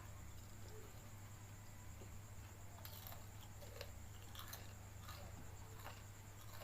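A person eating fried noodles: faint chewing with a few small clicks from about three seconds in, over a steady low hum and a steady high whine.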